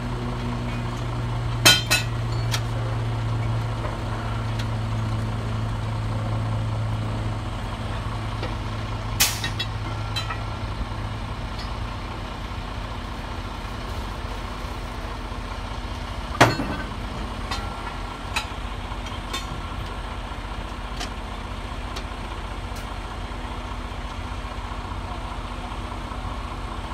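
A heavy engine idling steadily, with a few sharp metal knocks: one about two seconds in, a louder one around nine seconds, and two more past the middle.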